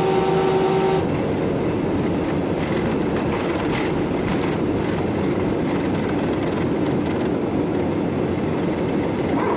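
Inside a jet airliner's cabin during the takeoff roll: the engines at takeoff power and a dense, steady rumble from the wheels on the runway, which sounds a bit scary. A steady humming tone stops about a second in.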